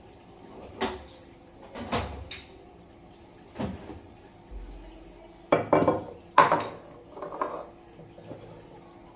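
Containers and bottles knocked and clinked about while someone rummages in a refrigerator for a bottle of sauce: a string of separate knocks and clatters, the loudest a little past halfway.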